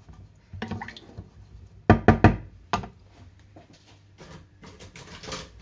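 A wooden spoon knocking against a pan: a cluster of sharp knocks about two seconds in, then lighter knocks and clacks as it is set down across the pan.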